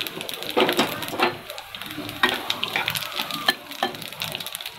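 Cumin and fenugreek seeds with chopped garlic sizzling in hot mustard oil in a kadhai, with irregular sharp crackles and pops, while a spatula stirs through the pan near the end.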